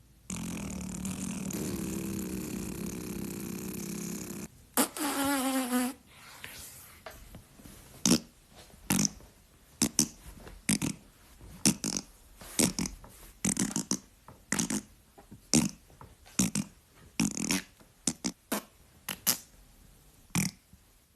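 Dubbed-in fart sound effects. A long, buzzy fart lasts about four seconds, then a shorter one wavers and falls in pitch. After a short pause comes a quick run of about twenty short, sharp farts.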